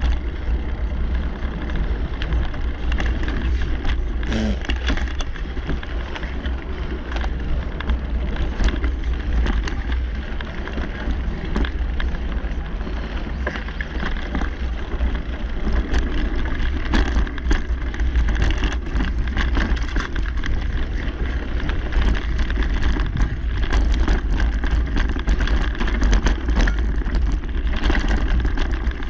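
Mountain bike rolling along a dirt singletrack: steady tyre and riding noise with a deep rumble, and frequent small clicks and rattles from the bike over the bumps.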